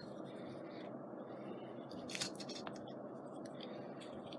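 Faint rustling and a few light clicks of small paper and fabric craft flowers being picked through by hand, over a steady low hiss.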